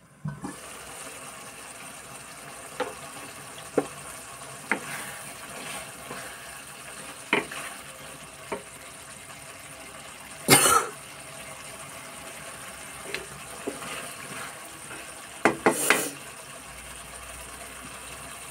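Food simmering in a steel pan on the stove, a steady sizzle with scattered small pops and clicks. A louder sudden sound comes about ten seconds in and a few more come near sixteen seconds.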